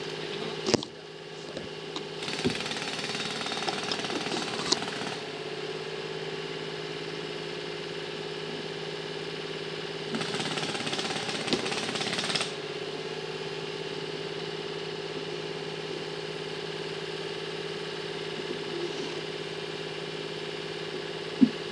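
Jackhammer breaking into concrete in two bursts of rapid hammering, about three seconds and two seconds long, over an engine running steadily. A single sharp knock comes just under a second in and another near the end.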